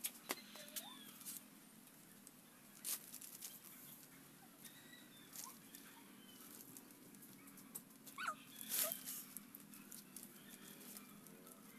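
Coconut-leaf strips rustling and crackling as they are woven by hand into a nest, in scattered clicks with the loudest near three and nine seconds in. A few faint short animal calls sound in the background.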